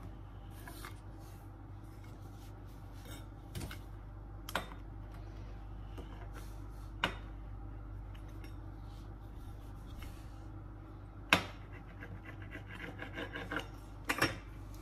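Metal pizza-cutter wheel rolling and scraping through layered puff pastry dough on a floured stone countertop. Several sharp clicks come where the wheel knocks against the counter, the loudest about eleven seconds in, with more scraping near the end.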